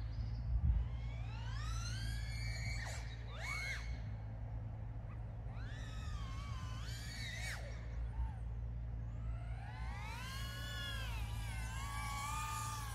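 Speedybee Bee25 2.5-inch cinewhoop FPV drone's motors and propellers whining, the pitch rising and falling with throttle in several sweeps, the longest one from about three quarters of the way in to the end, over a steady low rumble.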